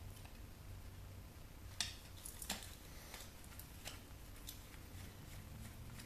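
Faint, scattered clicks and taps of small metal and plastic parts being handled while a CD changer's fan-and-heatsink assembly is worked on, about half a dozen over several seconds, over a low steady room hum.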